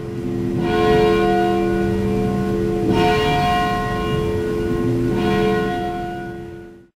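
Church bell tolling: three strikes a little over two seconds apart, each ringing on over the one before, cut off suddenly near the end.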